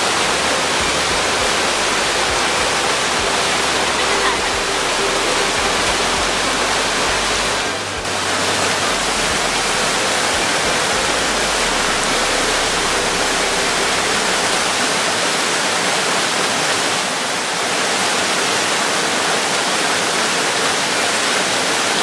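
Waterfall: falling water pouring steadily, loud and even, briefly dipping about a third of the way in and again about three quarters of the way through.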